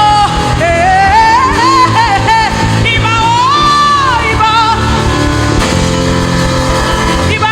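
A woman's voice sings wordless, sliding worship runs and long held notes over sustained instrumental chords. One note near the middle rises and is held for about a second.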